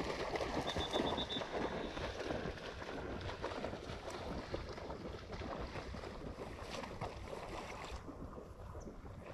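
Water splashing and sloshing in shallow flood water, with wind rumbling on the microphone. A short run of faint high chirps comes about a second in.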